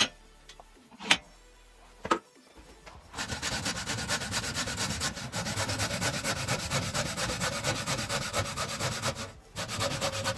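Three sharp knocks, then a hand hacksaw cutting metal held in a bench vise, with rapid, regular rasping strokes starting about three seconds in. The sawing stops briefly near the end and starts again.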